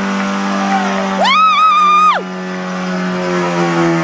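Stock car engine held at high, steady revs while spinning its rear tyres in a burnout. About a second in, a shrill high-pitched tone rises sharply over it, holds for under a second and falls away.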